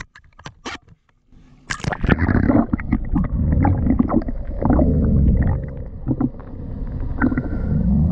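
Camera dipped under the sea surface: a few light clicks, then from about two seconds in a muffled low rumble and gurgling of seawater washing around the submerged camera housing.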